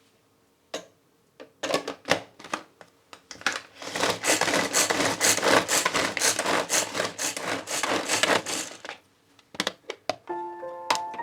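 Knife strokes on a wooden cutting board: a few separate knocks, then a quick, steady run of chopping for about five seconds, and two last knocks.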